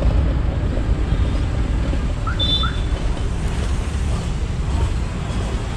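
Steady low rumble of running vehicle engines and road traffic, with a couple of short high chirps about two and a half seconds in.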